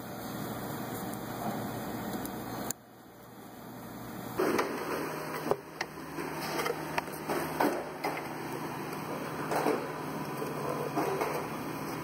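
Scattered clicks and knocks of hand work on engine-bay parts, over a steady low hum. The background changes abruptly twice, and most of the clicks come in the second half.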